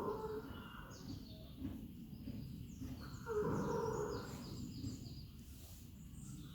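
Horse snoring while asleep: a long snoring breath ending just after the start and another about three and a half seconds in. Small birds chirp in the background.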